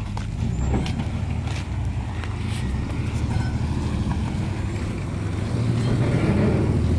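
Heavy dump truck's diesel engine running close by with a steady low rumble that grows louder about five and a half seconds in, as the loaded sand truck is manoeuvred into position.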